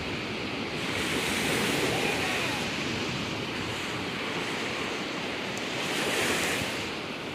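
Ocean surf breaking and washing up the beach, a steady rushing that swells twice, about a second in and again near the end.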